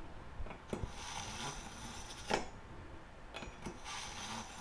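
Santoku kitchen knife drawn through an AnySharp pull-through sharpener's tungsten carbide blades several times: faint metallic scraping strokes with light clicks.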